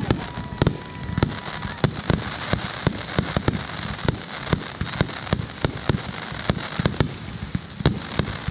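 Aerial fireworks bursting in quick, irregular succession, about three sharp bangs a second, over a steady high hiss.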